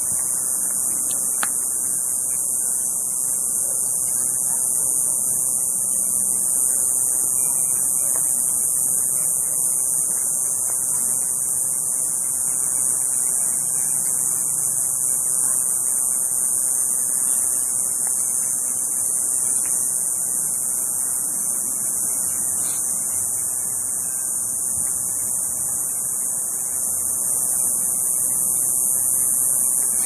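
Chorus of cicadas singing from the trees: a steady, high-pitched continuous buzz that holds without a break.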